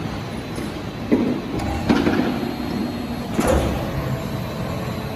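Steady mechanical hum of factory machinery, broken by a few sliding clunks about one, two and three and a half seconds in.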